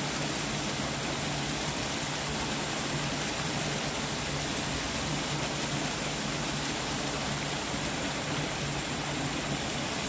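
Steady, even rushing noise with a faint low hum beneath it, unchanging throughout.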